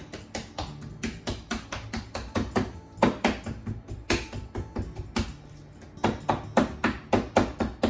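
A fork stabbing repeatedly through raw chicken thigh skin, each stab a sharp tap as the tines strike the board beneath, in irregular runs and then quick and even, about four a second, near the end. Background music plays underneath.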